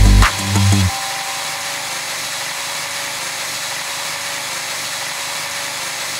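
Music with a beat stops about a second in. After it, a drill-powered grinder runs at a steady speed against a surface, a steady grinding hiss with a faint motor whine.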